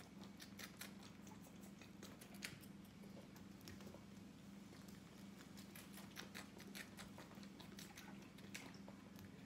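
Faint, irregular wet clicks and smacks of a young goat kid suckling from a feeding bottle, over a steady low hum.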